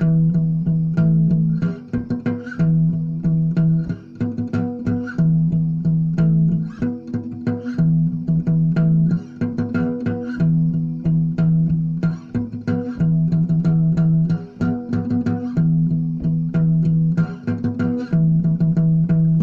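Instrumental music of plucked strings, guitar over a bass, with a low held note coming back about every two and a half seconds in a repeating pattern.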